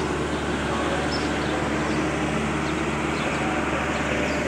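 Steady outdoor background noise, with a few faint, short high chirps.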